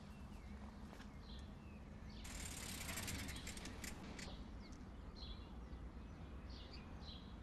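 Faint birds chirping now and then over a low steady outdoor rumble, with a brief rushing hiss about two seconds in.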